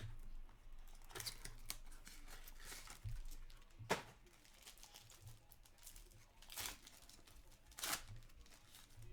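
A sealed box and pack of hockey trading cards being torn open by hand: wrapping tearing and crinkling in short, irregular bursts, with a sharp click about four seconds in.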